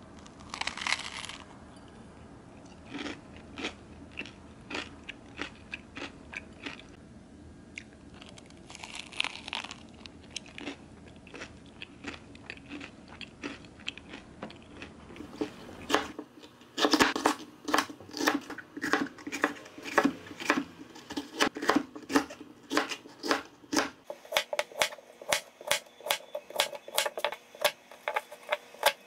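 Close-up chewing and crunching of a crusty pastry, in soft irregular bites. About halfway through it gives way to a chef's knife slicing zucchini on a plastic cutting board: quick, sharp, evenly spaced chops that are the loudest part.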